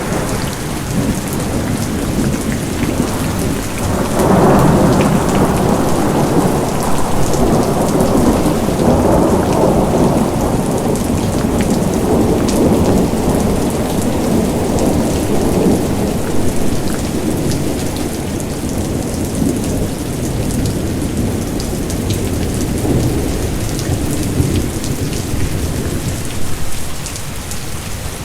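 Steady rain with a close patter of individual drops, and a long low roll of thunder that swells about four seconds in and slowly fades away.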